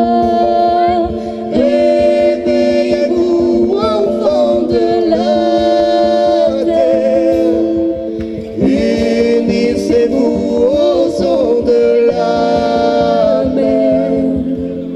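Female and male voices singing long, held, wordless melodic lines together over a strummed acoustic guitar, in a gentle song.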